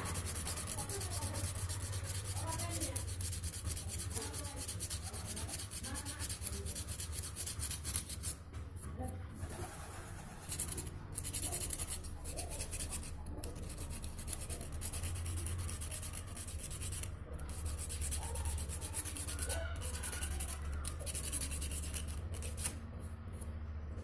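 Sandpaper rubbing back and forth on the rusty metal housing of an old bike's disc horn, scouring off rust, with a few short pauses between runs of strokes. A steady low hum sits underneath.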